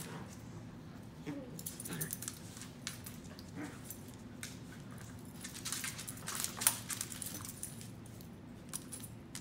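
Two corgis play fighting: claws scrabbling and clicking on a hard floor, collar tags jingling, and a few brief low dog vocal sounds. The sharpest knock comes a little past two-thirds of the way through.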